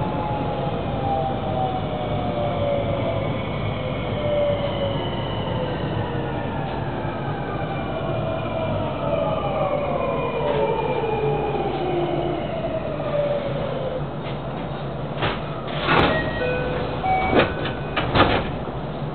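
JR West 223 series 2500 EMU braking to a stop, its VVVF inverter traction motors whining down in pitch over the running rumble until the whine dies away. Once the train stands there are a few sharp clunks.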